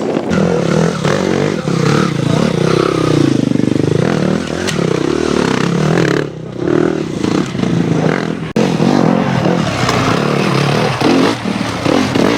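Enduro motorcycle engines revving hard, their pitch rising and falling sharply as the throttles are blipped and opened, with more than one engine heard at once at times. There is a short lull about halfway through.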